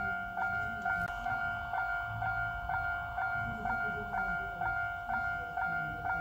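Japanese railroad crossing warning bell ringing, a ding re-struck a little over twice a second, each ring fading before the next.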